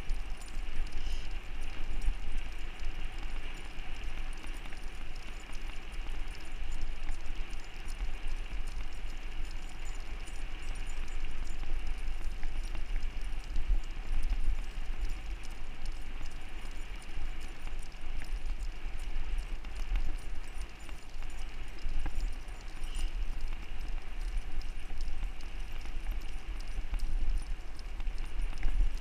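Wind and road rumble on a handlebar-mounted microphone as a rig is pulled along a paved trail by two running huskies, with a steady clatter of the rolling rig and the dogs' paws on the asphalt.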